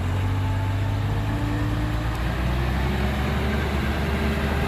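Heavy diesel engine running under load, its pitch climbing slowly.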